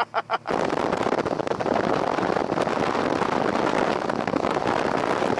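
Bass boat running at speed: a steady rush of wind buffeting the microphone over the noise of the hull and water, cutting off abruptly near the end.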